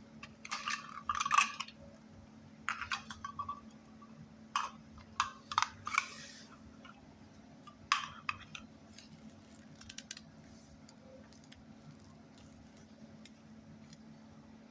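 Plastic toy food pieces and a toy knife clicking and clattering against each other in several quick bursts, the loudest about a second and a half in. The clatter stops after about eight seconds, leaving a faint steady hum.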